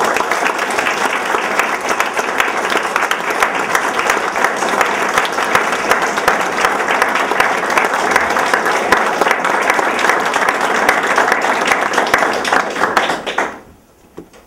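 Audience applauding, steady and loud for about thirteen seconds, then fading out quickly near the end.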